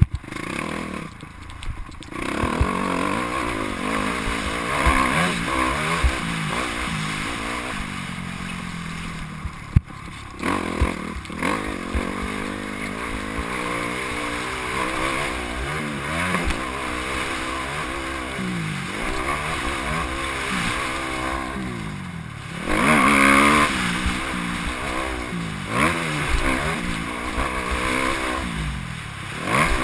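Motocross bike engine heard from the rider's helmet camera, its revs rising and falling again and again as the rider accelerates, shifts and backs off around the dirt track. The engine drops off briefly with a sharp knock about ten seconds in, and it is loudest a little past twenty-two seconds.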